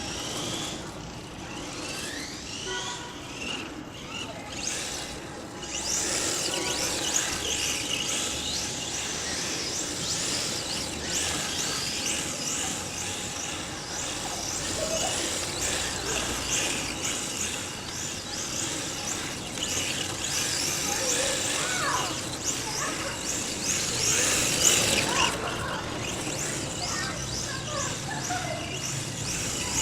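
HobbyKing Mission-D electric RC drift car running and drifting, its motor whine rising and falling with the throttle and its tyres squealing and scrubbing on the court; it gets louder about six seconds in.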